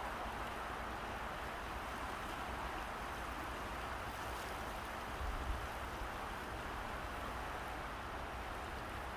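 Steady rush of a fast, shallow river flowing over gravel and rocks, with a brief low bump about halfway through.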